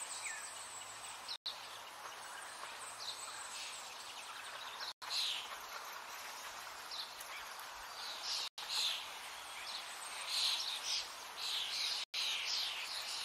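Background recording of small birds chirping over a steady outdoor hiss, the chirps coming more often in the second half. It is broken by four short silent gaps about every three and a half seconds.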